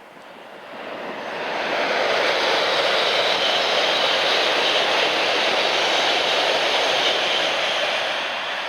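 Tokaido Shinkansen bullet train passing at speed: a rushing noise that swells over about two seconds, holds steady, and starts to fade near the end.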